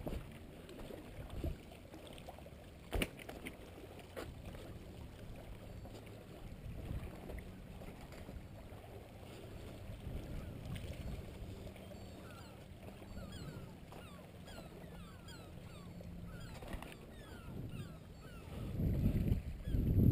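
Sea water lapping among shoreline rocks with wind on the microphone, a few sharp clicks early on from steps on rock, and louder wind gusts near the end.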